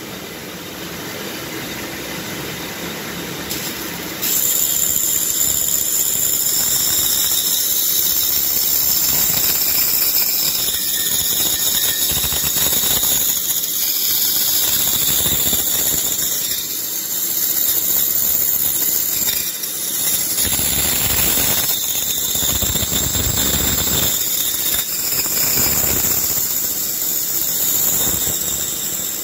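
Pégas fine-cut band saw running, its narrow blade sawing a thin slice off a block of wood. The saw runs on its own for the first four seconds or so; then the cut starts and it turns into a steady, louder high hiss.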